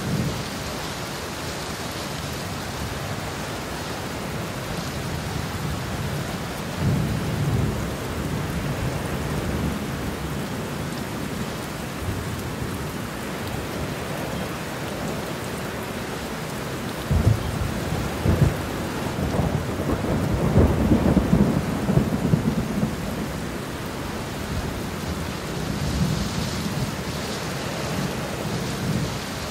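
Steady rain falling, with thunder rumbling. A louder clap of thunder comes a little past halfway and rolls on for several seconds, with softer rumbles earlier and near the end.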